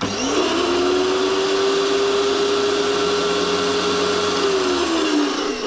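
Electric pressure washer motor switching on and running at a steady high whine without building pressure, the pump just spinning freely like a vacuum cleaner instead of pressurising. Near the end the whine drops in pitch as the motor winds down.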